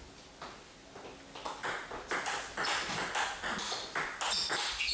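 Table tennis rally: the ball clicks sharply off the bats and the table top, a few hits at first, then a quick, even rhythm of several clicks a second.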